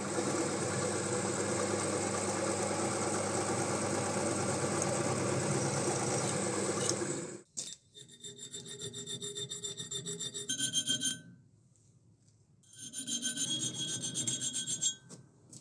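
Drill press boring a hole through a 2 mm steel plate: a steady whir that stops about seven and a half seconds in. Then a small file worked quickly back and forth in the hole to square it, in two short bouts with a pause between, each stroke giving a high metallic ring.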